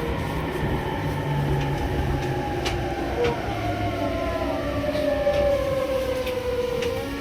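Electric train slowing down, its motor whine falling steadily in pitch over a low running rumble, with a few light clicks.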